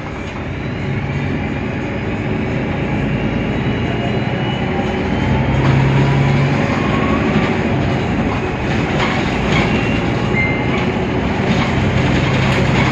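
Mercedes-Benz Citaro O530 city bus under way, its OM 906 hLA diesel and Voith DIWA automatic gearbox running with a steady rumble and low hum. A whine rises slowly in pitch over the first few seconds, and there are scattered rattles and knocks.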